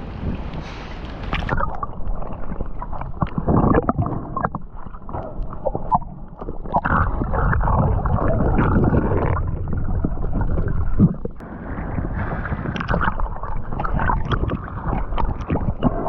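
Water sloshing and gurgling with the microphone going under about a second and a half in, after which the sound is muffled: underwater bubbling and rushing broken by scattered clicks and knocks.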